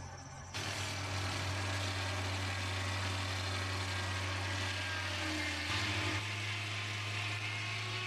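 Portable circular-saw sawmill cutting through a log: a loud, even hiss of blade in wood sets in about half a second in over the steady hum of the mill's engine. The engine note shifts a little under six seconds in.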